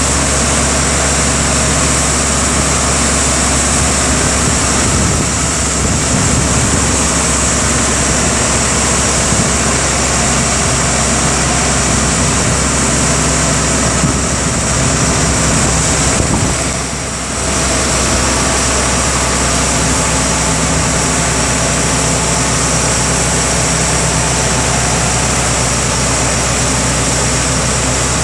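2013 Freightliner 108SD vacuum truck with its Vactor boom raised, running steadily: a loud, even engine drone with a hiss over it. The sound dips briefly a little over halfway through.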